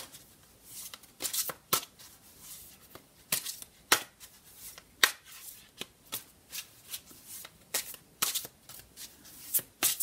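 A deck of tarot cards being shuffled by hand, the cards giving a run of irregular short snaps and slides.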